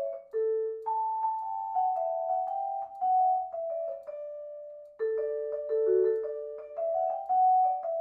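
Background music: a melody of single ringing mallet-like notes, one after another. The melody thins to one fading note about halfway through, then picks up again.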